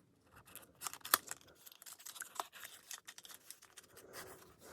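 A cosmetics kit's packaging being opened by hand: the wrapping rustles, tears and crinkles, with a run of sharp clicks and taps. The loudest click comes about a second in.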